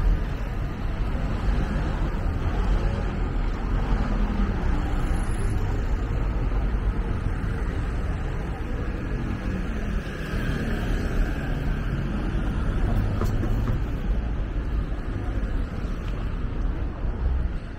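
City street ambience: a steady wash of road traffic noise with a strong low rumble throughout.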